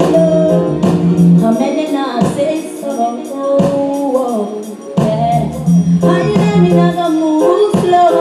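Reggae music with a singer's voice over a steady beat, played through a sound system during a juggling set.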